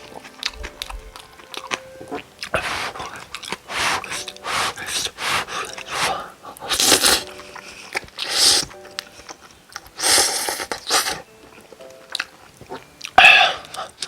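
Close-miked eating of cup noodles: repeated noisy bursts of slurping and chewing, several seconds apart, with the loudest burst near the end.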